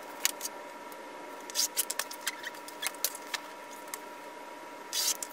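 Scattered light clicks, scrapes and rustles of fabric and cutting tools being handled on a cutting mat, coming in several short clusters over a faint steady tone.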